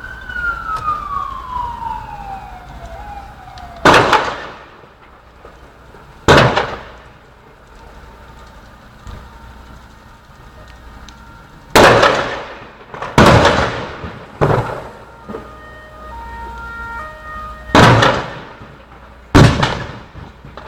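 A series of loud explosions: about seven sharp bangs at irregular intervals, each followed by a rolling echo. An emergency-vehicle siren wails and fades away over the first few seconds.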